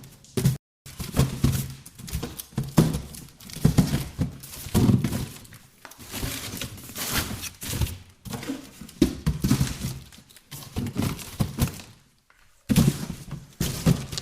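Cardboard boxes being handled, shifted and set down one after another: irregular thunks and knocks mixed with scraping and rustling, with a couple of short pauses.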